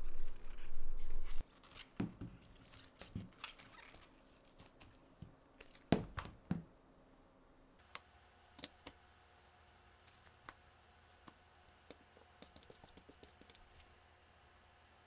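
A low steady hum that cuts off abruptly about a second and a half in, followed by scattered light clicks, taps and knocks of small objects being handled, with a quick run of small ticks near the end.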